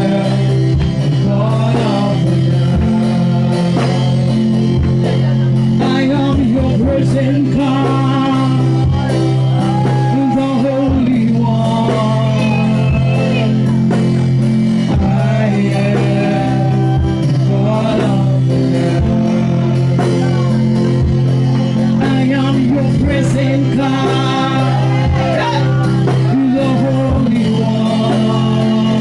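Worship music: a voice singing over a band playing steady sustained chords.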